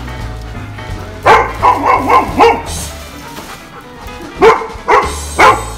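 Golden retriever barking in two bouts: a quick run of about five barks a second or so in, then three more spaced barks near the end, over background music.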